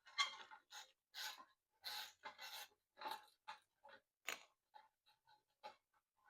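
A string of short clicks and scrapes from small parts being handled and fitted, as a dryer thermostat is transferred onto its replacement.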